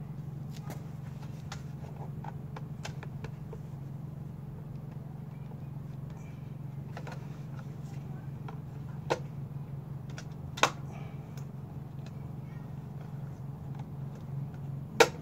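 Scattered light clicks and taps of small objects being handled, over a steady low hum. Three sharper clicks stand out, about nine seconds in, a second and a half later, and at the very end.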